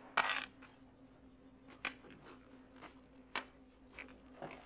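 Faint room tone with a steady low hum and a few scattered short knocks; the loudest is a brief scrape-like knock just after the start.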